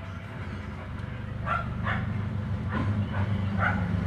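Mitsubishi 4D56 diesel engine running steadily, its fuel shut-off solenoid bypassed with the plunger removed. A dog yelps about five times over it from about a third of the way in.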